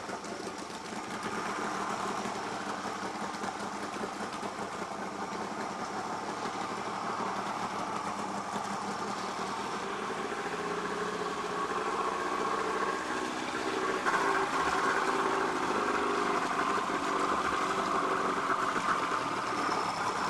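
Outboard motor on a small aluminium dinghy running at low speed, a steady drone that grows louder about fourteen seconds in.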